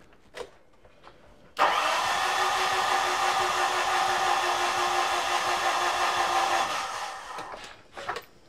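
Starter motor cranking a Mitsubishi Fuso FG's 4P10 four-cylinder common-rail diesel with its injectors removed, so it spins over without compression and does not fire. It is a steady whir that starts suddenly about a second and a half in, runs about five seconds, then winds down.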